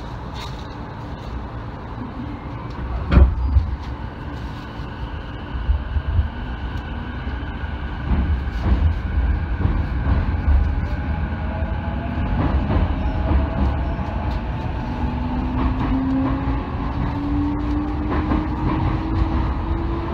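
Electric commuter train pulling away from a station, heard from inside the car: a single loud clunk about three seconds in, then the motors' whine rising slowly in pitch as the train gathers speed over a growing rumble of wheels on rail.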